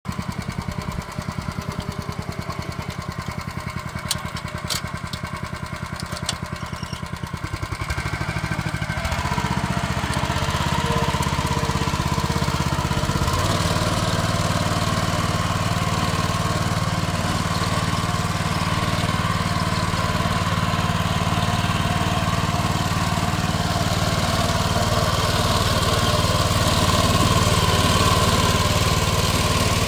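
Belarus 09N walk-behind tractor's small single-cylinder petrol engine running steadily. It grows louder about nine seconds in and again a few seconds later, then keeps a steady working note as it pulls a plough through the soil.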